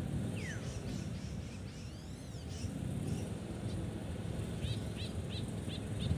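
Birds chirping: a few scattered calls, then a rapid run of short repeated chirps, about four a second, in the last second and a half, over a steady low rumble.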